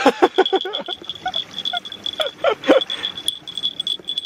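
A single high-pitched tone beeping rapidly and steadily, alarm-like, over scattered clicks and knocks.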